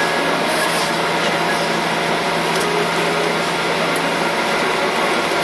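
Steady cabin noise inside a Boeing 737-800 taxiing slowly after landing: an even rush of air with a faint steady whine from the idling CFM56 jet engines and cabin air conditioning.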